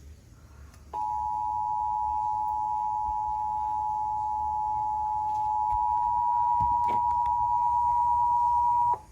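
Emergency Alert System attention signal: a steady two-tone alert tone that starts about a second in, holds for about eight seconds and cuts off abruptly.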